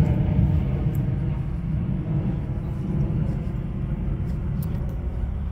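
Steady low rumble of outdoor background noise that flutters slightly, with no single clear event standing out.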